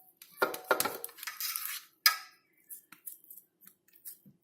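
Cookie cutter being set down and pressed into potato cutlet dough, clinking and scraping against the dish. A few sharp knocks come in the first second with scraping after them, another knock about two seconds in, then only faint ticks.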